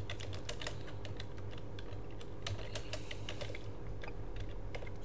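Typing on a computer keyboard: a quick, irregular run of key clicks as a command is typed, over a faint steady hum.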